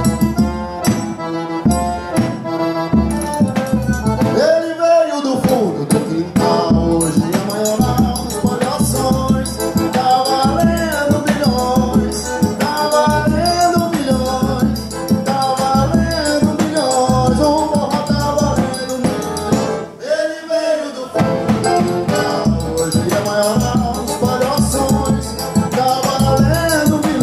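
Live forró trio playing: a piano accordion carries the melody over a steady beat of triangle and zabumba bass drum. The drum and bass drop out briefly twice, about five seconds in and again later, while the accordion carries on.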